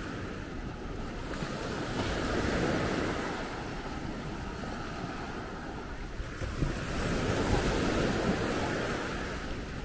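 Sea waves washing in, swelling twice and easing off, with wind buffeting the microphone.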